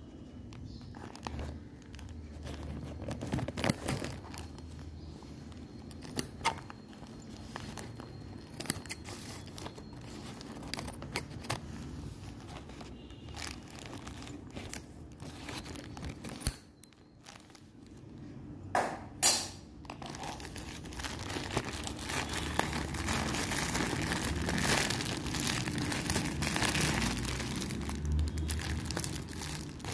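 Plastic courier mailer and packaging crinkling and crackling as they are handled and opened. A couple of sharp, louder crackles come about two-thirds of the way through, then the crinkling becomes denser and steadier toward the end.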